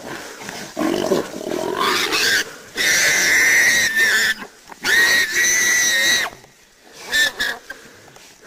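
Wild pig squealing while held by hunting dogs: two long, high, steady squeals and a short one near the end, with rougher grunting squeals before them.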